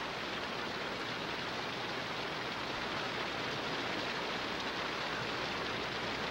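Steady rush of the McNeil River running over rocky rapids, an even hiss of water with no breaks.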